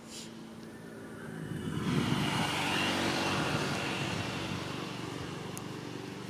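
An engine passing by: it swells from about a second and a half in, is loudest for a couple of seconds, then slowly fades.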